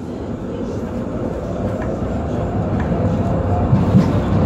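Düwag N8C-NF tram rolling along, heard from on board: a low rumble of running gear and motors that grows steadily louder.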